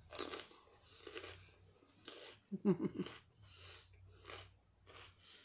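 Raw celery stalk being bitten and chewed: a loud crisp crunch right at the start, then a run of softer chewing crunches. A brief hummed vocal sound from the eater comes about halfway through.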